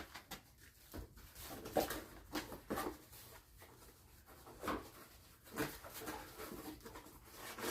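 Scattered light knocks, clicks and rustles of parts and packaging being handled.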